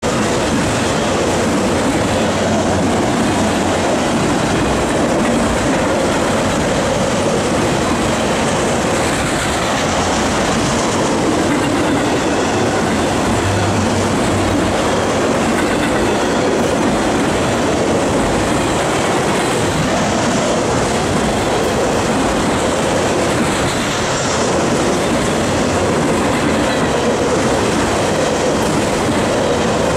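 Freight train of enclosed autorack cars rolling past close by: steady wheel-on-rail noise with no letup.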